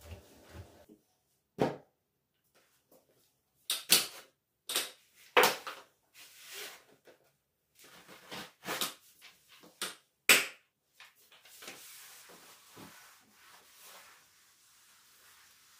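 Sharp knocks and clicks of household items being picked up and set down while cleaning, about seven distinct hits in the first ten seconds, followed by a soft steady hiss of rubbing or spraying from about eleven seconds in.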